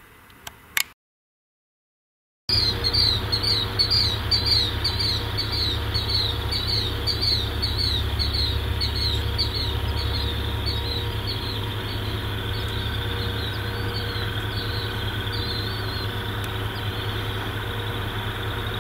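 After two clicks and a brief silence, a bird calls in a fast run of short repeated chirps that starts loud and fades away, over a steady low rumble.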